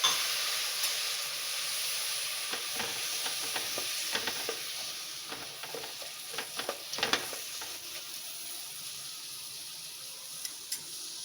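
Jaggery and a little water sizzling steadily in a thick-bottomed pan as the jaggery melts. A spoon knocks and scrapes against the pan in a run of strokes through the middle.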